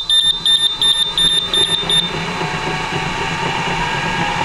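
Ghost Controls solar gate opener under test: the control board's warning beeper sounds in rapid high beeps, about five a second, and stops about two seconds in, while the actuator arm's 12-volt electric motor runs, driving the pushrod with a steady hum and a whine that rises slightly near the end.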